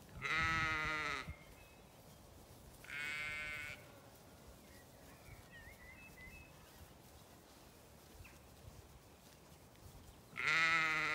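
Zwartbles sheep bleating three times: a loud bleat near the start, a quieter one about three seconds in, and another loud one near the end, each with a wavering pitch.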